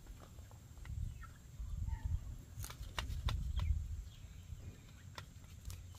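Outdoor ambience: an uneven low rumble of wind on the microphone, with a run of sharp clicks about halfway through and a few faint bird calls.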